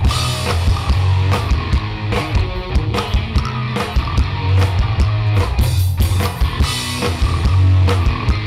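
A live rock band playing the instrumental opening of a song, with drums and a heavy bass line driving it.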